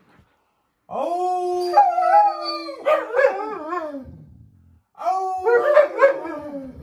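Alaskan malamutes howling along with a man's howl: two long howls in a row, each starting on a steady note and then breaking into several wavering voices that fall away.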